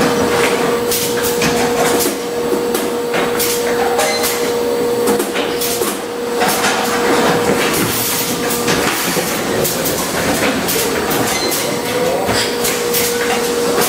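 A Schäfer & Flottmann carton packaging machine running: rapid, irregular clicking and clattering of its mechanisms and pneumatic cylinders over a hiss, with a steady hum tone that drops out for a few seconds midway.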